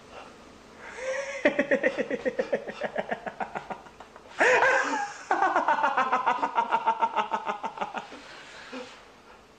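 A man laughing loudly in two long bouts of rapid "ha-ha-ha" pulses, with a sharp intake of breath between them about halfway through.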